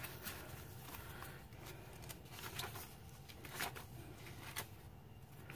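Faint rustling and light ticks of paper as the pages of a handmade junk-journal insert are turned and a journaling card is handled, with one slightly louder rustle about two thirds of the way through.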